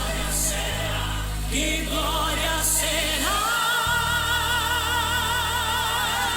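Gospel choir singing with band accompaniment over steady bass notes, settling from about three seconds in onto one long held note with vibrato.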